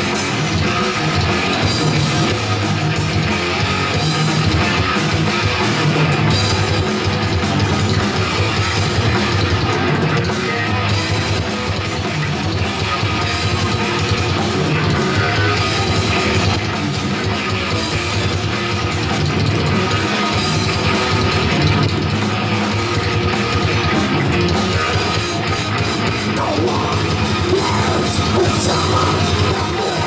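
Heavy metal band playing live: distorted electric guitars over a drum kit, loud and continuous.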